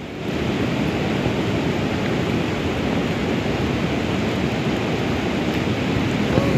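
Fast river water rushing over shallow rapids: a steady, even rushing noise.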